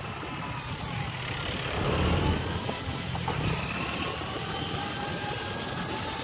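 Low, steady rumble of road vehicles and engines that swells briefly about two seconds in.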